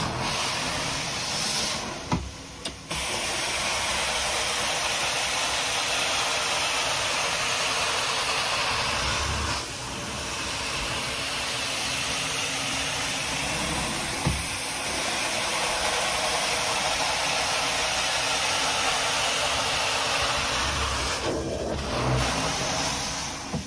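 Carpet extraction wand spraying and sucking water out of carpet: a steady rushing hiss of suction with a machine drone under it, dipping briefly a few times between strokes. This is the extraction pass that lifts a red-wine stain.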